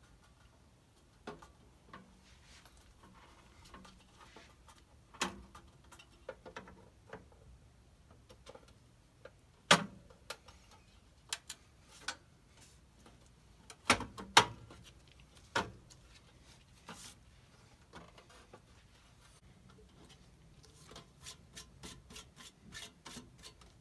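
A black sheet-metal side water tank of a live-steam tank locomotive being handled and fitted against the boiler and frame: scattered light knocks and clicks with rubbing and scraping between them, the loudest knocks about ten and fourteen seconds in, and a quick run of small ticks near the end.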